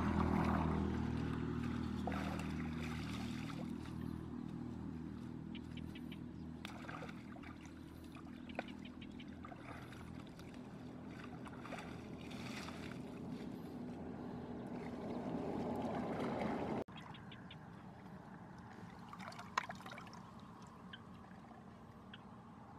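A steady engine drone, loudest at first and slowly fading, that cuts off abruptly about three-quarters of the way through. Over it, hands splash and slosh in shallow muddy water among wet water weeds.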